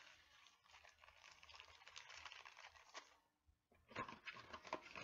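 Plastic packaging faintly crinkling and rustling with small clicks as nail drill accessories are unwrapped by hand, pausing briefly about three seconds in before the handling resumes.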